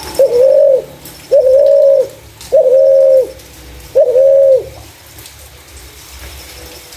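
Spotted dove cooing: four loud coo notes in a row, each about half a second long, then it falls silent.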